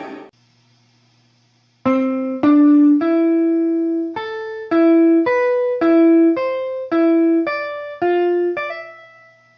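A single line of clean, piano-like keyboard notes played slowly one at a time, about two a second. The line starts about two seconds in after a faint low hum, and each note rings and fades before the next.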